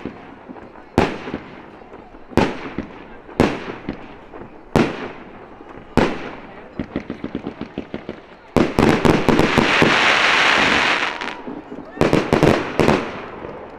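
Aerial fireworks shells bursting at close range: sharp bangs a little over a second apart, then a rapid run of small pops. About halfway through comes the loudest part, a dense crackling rush lasting nearly three seconds, followed by a cluster of bangs near the end.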